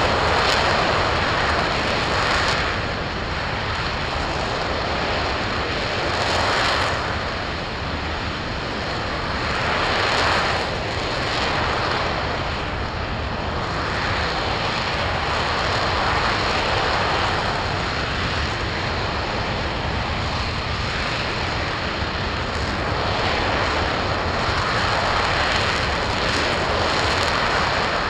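RS-25 liquid-hydrogen/liquid-oxygen rocket engine firing steadily on a test stand, about five minutes into a 600-second hot-fire test. It makes a loud, continuous roar that swells and eases every few seconds.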